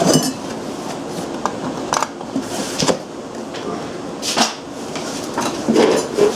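Loose engine and generator parts being handled and set down: scattered clinks, knocks and rustles, a few seconds apart.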